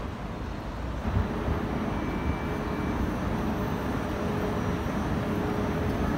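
Steady low vehicle rumble with a faint steady hum, slowly growing louder.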